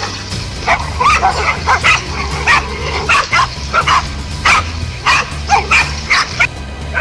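Several dogs barking and yipping in rapid, overlapping bursts, about fifteen sharp barks, as they attack a snake. A steady low hum runs underneath.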